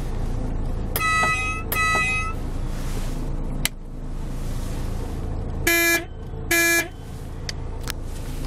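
Truck horn sounding twice in short toots, then after a click, two lower, louder blasts with many overtones. A diesel engine idles steadily underneath.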